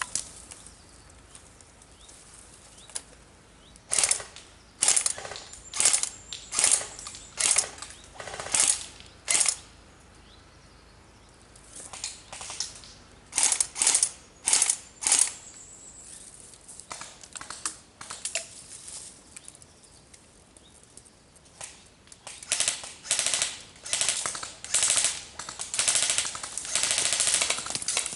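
Airsoft guns firing: sharp shots, singly and in quick runs, growing denser and more sustained near the end.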